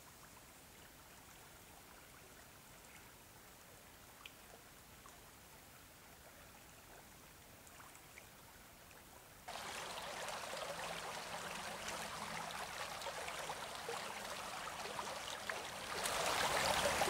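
Near silence at first, then from about halfway through the steady rush of a shallow stream's flowing water, which grows a little louder near the end.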